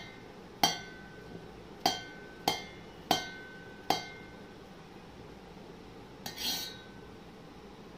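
A knife striking a dish five times at irregular intervals as a banana is cut into pieces, each strike a sharp clink with a brief ring. About six seconds in comes a short scraping clatter.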